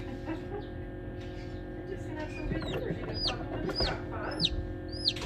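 Newly hatched chicken chick peeping: about five high, sharp peeps, each falling in pitch, beginning about halfway through, over a steady hum.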